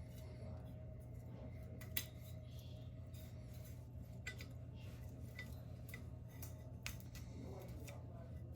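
Scattered sharp metallic clicks and clinks of a metal track light fixture's parts being handled and worked apart, the loudest about two seconds in, over a steady low hum.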